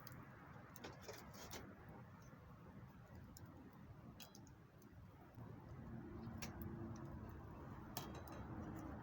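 Faint, sparse crackles and pops from a wood campfire, with a faint low steady hum coming in about halfway.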